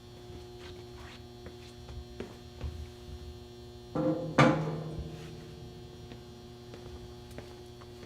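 Two sharp metallic knocks about four seconds in, the second louder, each ringing briefly, amid a few light clicks of handling over a steady hum.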